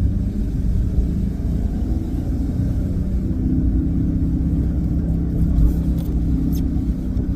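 Chrysler Crossfire's V6 engine and road noise heard from inside the cabin while driving, a steady low rumble, with the engine note rising slightly about halfway through.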